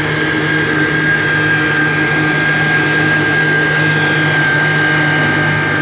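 Yamaha VX110 WaveRunner's four-stroke engine running steadily under load, with a constant high whine over the engine note, on a load test of the cleaned-out cooling system. It runs quiet for a watercraft.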